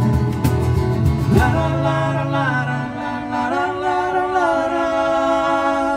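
A small acoustic band finishes a song. Acoustic guitars strum and stop about a second and a half in, leaving voices singing the final notes in harmony. The voices step up once midway, hold the last note, then cut off.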